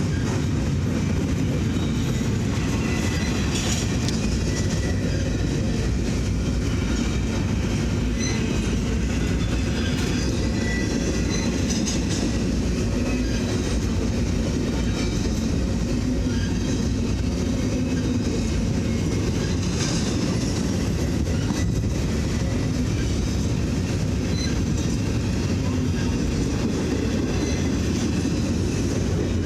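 Norfolk Southern freight train rolling steadily past, a continuous rumble of wheels on the rails with some clickety-clack.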